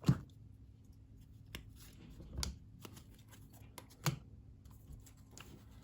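Trading cards being handled: a few short taps and slides of card stock, the sharpest right at the start and softer ones about two and four seconds in.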